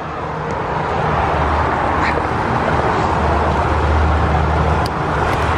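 A person sliding down a painted slide: a steady rushing scrape of clothing on the slide's surface, with a low rumble, growing louder over the first few seconds.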